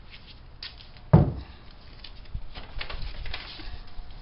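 Handling sounds of painter's tape and plastic, light rustles and clicks, with one sharp knock about a second in that is the loudest sound.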